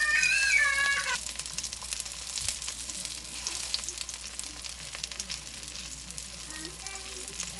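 Oyster pancakes frying in oil in a pan: a steady sizzle with fine crackles. A short high-pitched call sounds over it in the first second.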